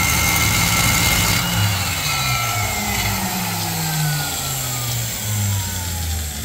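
Valve seat grinder spinning its stone against a Harley Shovelhead cylinder head's valve seat, cutting the seat; it is switched off about a second and a half in and its whine falls steadily in pitch as it spins down.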